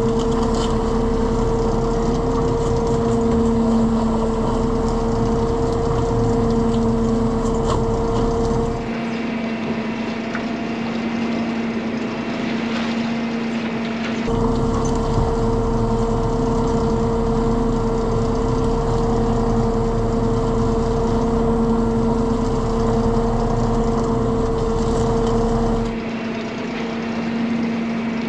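Fishing boat's engine and net-hauling machinery running steadily with a constant two-tone hum over a low rumble while nets are hauled aboard. The rumble and the higher hum drop away abruptly about nine seconds in, return a few seconds later, and drop away again near the end.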